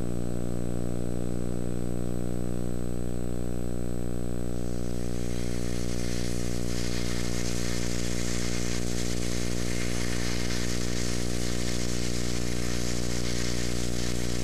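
A loud, steady buzzing hum with many overtones. From about five seconds in, a hiss builds up over it.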